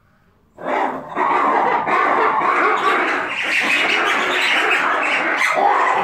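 Black-and-white ruffed lemurs giving their loud group call, a dense chorus of harsh calls from several animals. It starts suddenly about half a second in and dips briefly just after.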